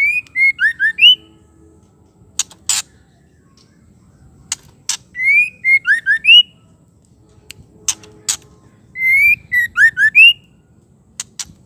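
Female white-rumped shama (murai batu) calling: three short phrases of clear whistled notes, each about a second long, rising and dropping in pitch and repeated a few seconds apart, with sharp clicks in between.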